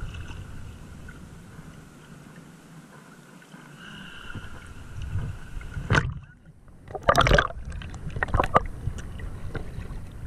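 Sea water lapping and sloshing against a camera held at the waterline in shallow sea. About six seconds in the sound goes muffled for a moment as the camera dips under the surface, then loud splashing and sloshing follow as it breaks back out into the small waves.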